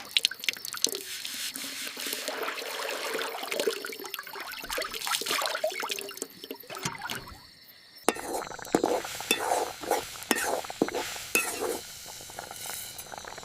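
Liquid sounds, dripping and pouring, with many small clicks and knocks. The sound changes abruptly about eight seconds in.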